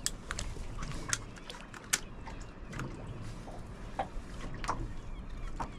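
Water lapping and slapping against the hull of a small boat: irregular sharp splashy knocks, roughly one a second, over a low steady rumble.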